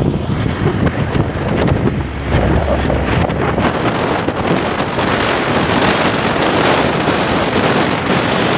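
Loud, steady wind rush buffeting the microphone while travelling along a road, with vehicle rumble underneath that is heavier in the first couple of seconds.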